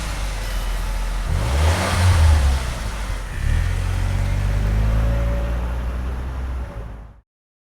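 Car engine running and revving. The pitch rises and falls about two seconds in, then the engine settles into a steady run before cutting off suddenly about seven seconds in.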